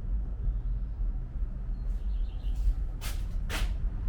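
Low, steady outdoor rumble with faint bird chirps about two seconds in, and two short hissing scrapes a half-second apart near the end.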